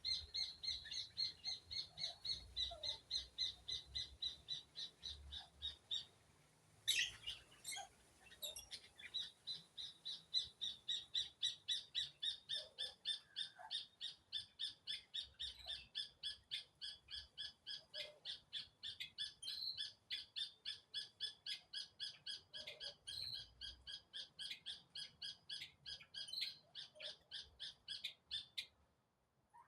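A bird calling in a long run of short, evenly repeated notes, about three a second. The calling breaks off briefly about seven seconds in, then resumes and stops near the end.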